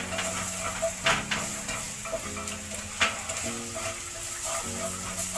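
Potato chips deep-frying in a pan of hot oil, sizzling steadily, while a spoon stirs the pot beside it, with sharp knocks of the spoon on the pot every second or two.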